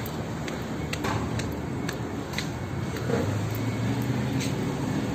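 Steady hum of street traffic, with light footsteps on concrete about twice a second during the first half.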